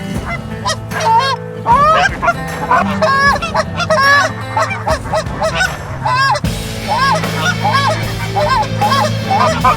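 Canada goose honks, many short calls in quick succession and overlapping one another, with a steady low hum underneath.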